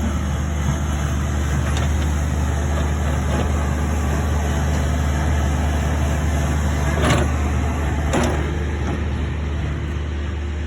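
Excavator's diesel engine running steadily, with two short sharp knocks about a second apart in the second half.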